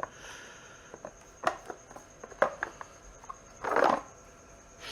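Handling noise from kayak motor mounting plates and their hardware: a few sharp clicks and knocks as the parts are set together and moved, and a short scraping rustle a little before the end.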